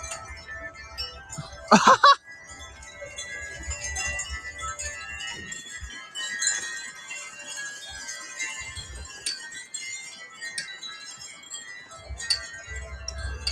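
Many wind chimes ringing together in gusting wind, with wind rumbling on the microphone at times. About two seconds in, a short loud sound stands out above the chimes.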